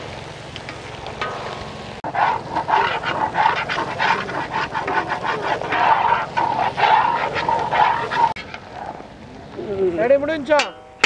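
A metal spatula scraping and stirring prawn masala in a large iron pan over a wood fire: rapid, repeated scraping strokes for several seconds. Near the end comes a short wavering, pitched sound.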